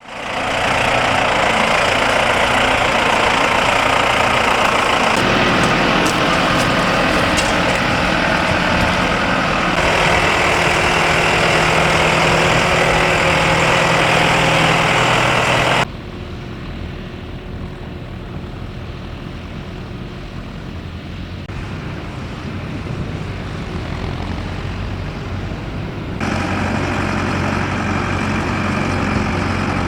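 Tractor engines running under load as they pull ploughs, a steady engine sound. The sound changes abruptly several times, with a quieter stretch from about halfway to near the end.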